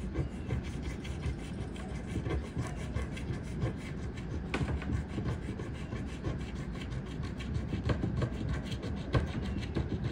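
A coin scraping the coating off a scratch-off lottery ticket in rapid, repeated strokes.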